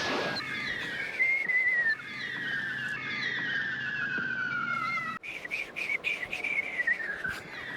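A 'bombs away' falling-whistle sound effect, used for a bionic throw: several descending whistles in a row, each sliding down in pitch, with a few sharp clicks in the second half.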